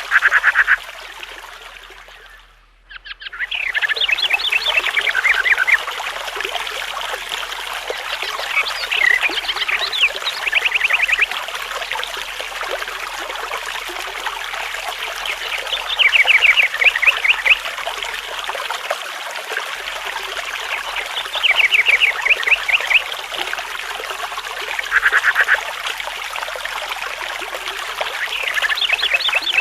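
Nature soundscape: a dense chorus of animal calls over a steady hiss, with rapid rattling trills of about a second recurring every few seconds. The sound fades almost out about two seconds in and returns a second later.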